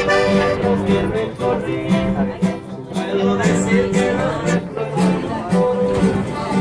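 Mariachi band playing live inside a subway car: strummed acoustic guitar over a steady, repeating bass line, with sustained accordion-like melody notes.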